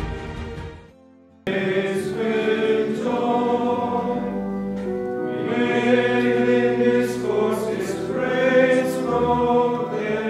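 Congregation singing a hymn together in long held notes, starting suddenly about a second and a half in. Just before it, the previous background music fades out into a short lull.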